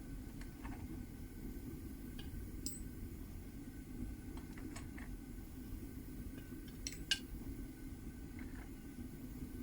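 Homemade propane furnace's burner running steadily with the gas turned down, under scattered light metallic clinks and taps of tools on metal. The sharpest clink is about seven seconds in.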